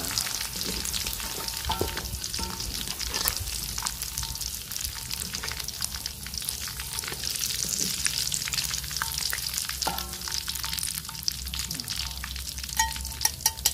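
Chicken pieces deep-frying in hot oil in a steel wok, a steady crackling sizzle. The cooked pieces are being lifted out with a wire strainer and ladle, and a few short metallic clinks ring out, the loudest near the end.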